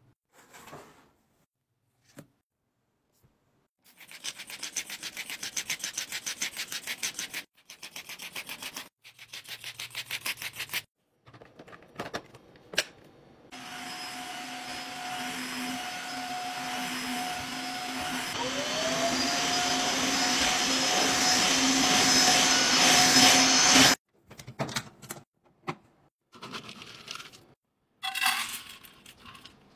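Rapid rhythmic brushing strokes on fabric, then a vacuum cleaner running steadily for about ten seconds, growing louder, its motor whine gliding up in pitch partway through, before it cuts off suddenly. Near the end, short rattles of dry pet kibble poured from a scoop into a stainless steel bowl.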